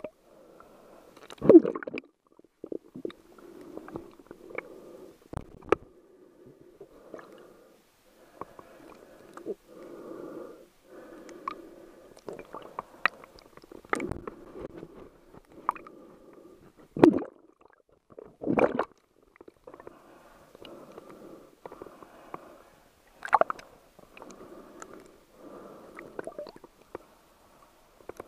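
Muffled underwater noise heard through a camera's waterproof housing: irregular gurgling and sloshing of moving water, with sharp knocks on the housing, the loudest a little over a second in and three more later on.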